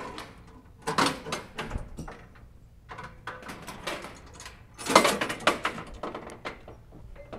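Steel-mesh utility trailer ramp gate being handled, clanking and rattling in several irregular bursts, loudest about five seconds in.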